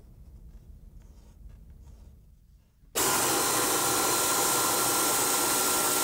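Low shop hum, then about three seconds in a power wrench starts abruptly and runs steadily with a hiss and a steady whine, backing out the door hinge bolts to take the door off.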